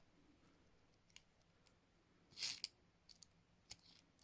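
Faint, scattered metallic clicks of a key working in the lock of HIATT folding rigid handcuffs, with a brief louder hiss a little past halfway.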